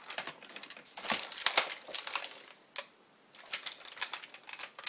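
Hands handling and moving a plastic toy dinosaur's body and tail: irregular clicks and rustling of plastic parts, with a short lull about three seconds in.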